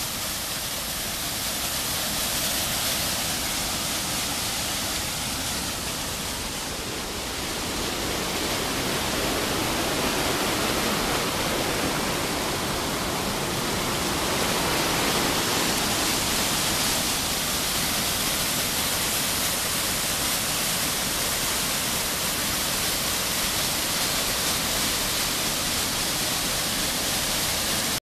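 Waterfall cascading over rock ledges, a steady loud rush of white water.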